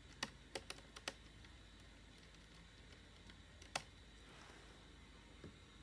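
Light clicks and taps from handling a laptop's plastic casing and parts: a quick run of about five in the first second, then one sharper click near four seconds in.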